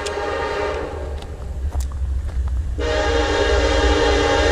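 Air horn of an approaching Norfolk Southern SD70ACe diesel locomotive, sounding a chord of several notes: one blast that thins out about a second in, then a louder blast from about three seconds in, over a low rumble.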